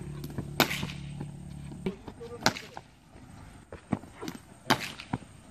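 Sharp cracks of a cricket bat striking a taped tennis ball, three loud hits about two seconds apart, with lighter knocks in between. A low steady hum runs under the first two seconds and stops.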